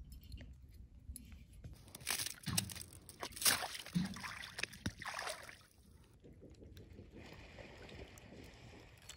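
A dog wading and splashing through shallow lake water among broken shore ice, sloshing and crunching, loudest for a few seconds in the middle. After that comes quieter, steady lapping of water at the icy shoreline.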